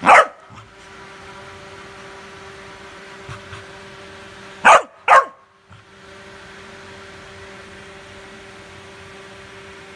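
Black Labrador puppy barking three times: one sharp bark right at the start, then two quick barks in a row a little under halfway through.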